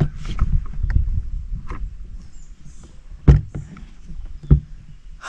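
Knocks and bumps on the plastic hull of a pedal boat as someone shifts their weight and leans over the side, with two louder thumps about a second apart late on.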